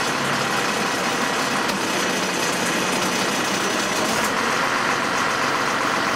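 Diesel engine of a MAN truck-mounted crane running steadily while the crane lifts an overturned car.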